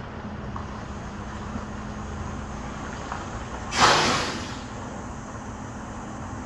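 Diesel semi-truck idling with a steady low hum as it backs its trailer in, then a sudden loud hiss of air brakes a little past halfway that fades over about a second as the truck stops and its brakes are set.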